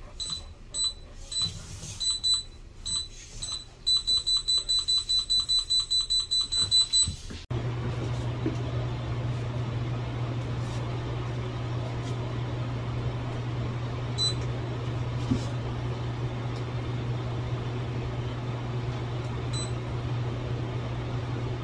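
Handheld NOYAFA NF-518S wall scanner giving short high-pitched beeps, first scattered and then a rapid even run of about four a second, as it picks up a stud or metal behind the wall; the beeping cuts off suddenly about seven seconds in. After that a steady low hum of equipment in a room of network racks, with two single beeps.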